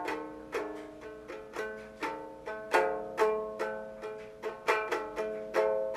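Home-built wooden kit ukulele strummed in chords, about two strums a second, each strum ringing briefly and the chords changing as it goes.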